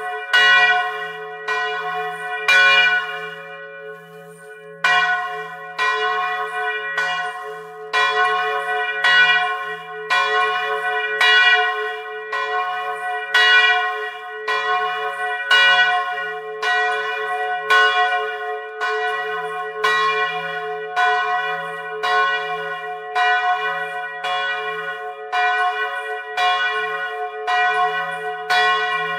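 A bronze church bell swinging in its belfry, heard at close range, with its clapper striking about once a second and each stroke ringing on into the next. There is a short gap in the strokes around four seconds in. The bell still has its original clapper and yoke.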